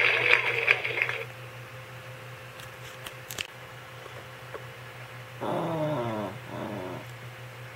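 Pomeranian giving a short two-part whining vocalization about five and a half seconds in, each part falling in pitch.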